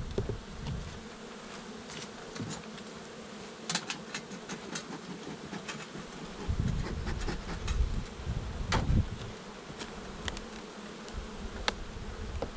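Honeybees buzzing over the open top of a hive, with a few sharp clicks and knocks from a hive tool against the wooden frames.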